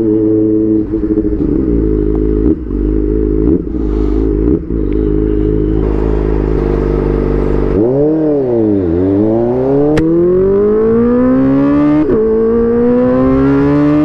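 Kawasaki ZX-4RR's 399 cc inline-four engine holding steady revs, then sinking and climbing in a rising whine as the bike accelerates away, with an upshift about twelve seconds in and the whine climbing again.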